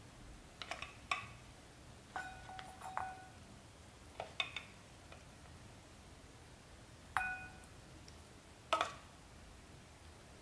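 Kitchen tongs clinking against a ceramic serving bowl while pork ribs are placed in it: five groups of light clinks, several ringing briefly.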